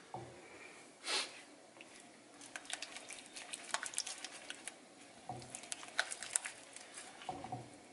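Silicone spatula stirring runny scrambled eggs in a nonstick frying pan: soft wet squishes with light scraping clicks against the pan, thickest from about two and a half seconds in. A brief rush of noise about a second in.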